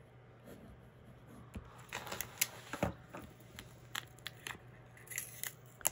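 Hands handling a roll of washi tape and paper on a desk: faint for the first couple of seconds, then scattered small clicks, taps and rustles.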